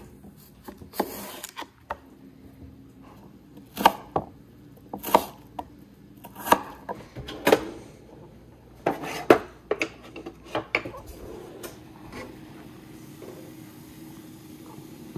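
Chef's knife cutting potatoes into fries on a wooden cutting board: about a dozen separate sharp knocks of the blade on the board, spaced irregularly over the first ten seconds or so. After that it is quieter, with a faint steady hum.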